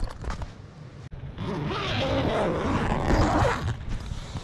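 Canvas and bedding rustling inside a swag: a couple of seconds of scratchy handling noise starting about a second and a half in.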